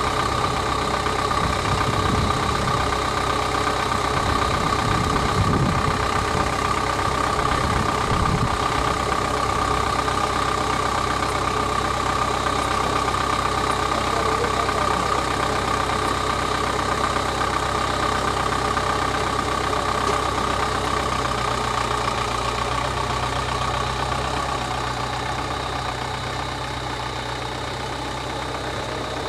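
A vehicle engine idling steadily, with a few low rumbles in the first several seconds.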